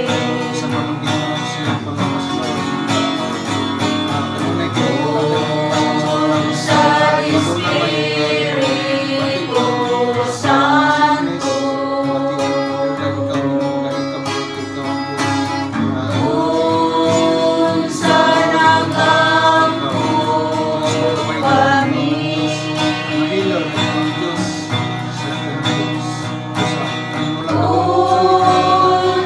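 A worship song sung with guitar accompaniment, the voice holding long notes.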